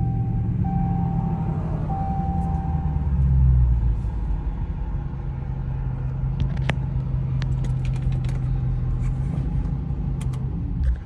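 2019 Dodge Charger Scat Pack's V8 running at a steady idle, heard from inside the cabin, while the engine overheats from a burst radiator that has lost its coolant. A repeating chime tone sounds three times in the first three seconds, there are a few light clicks around the middle, and the engine shuts off at the very end.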